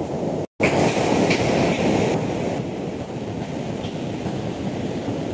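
Steady rumbling background noise over a video-call audio line, cutting out completely for a moment about half a second in.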